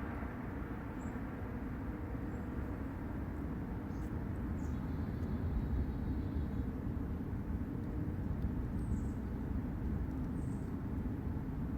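A steady, low, noisy rumble coming from the sky, like a low-flying jet aircraft, although no aircraft can be seen. A few faint high chirps sound over it.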